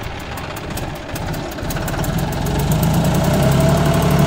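John Deere 5310 tractor's three-cylinder diesel engine running, growing louder from about two and a half seconds in as the tractor pulls off with the reversible plough set into the soil.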